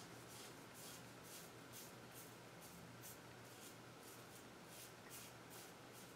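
Merkur 34C double-edge safety razor with an Astra SP blade scraping through lathered stubble against the grain, in short, faint, crunchy strokes about two and a half times a second.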